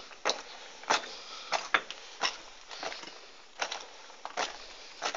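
Footsteps on a gritty floor, a short knock or scuff about one and a half times a second in an even walking rhythm.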